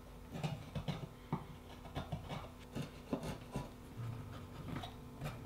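Hand chisel paring a wooden tenon: a series of short, quiet scrapes and clicks as thin shavings are taken off, trimming the tenon to fit its mortise.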